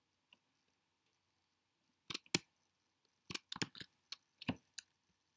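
Clicking from a computer mouse and keyboard: two sharp clicks about two seconds in, then a loose run of about six more clicks over the next second and a half.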